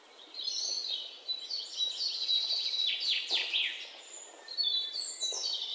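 A small songbird singing: a busy, varied run of high warbled notes and trills, with a few quick falling notes about halfway through.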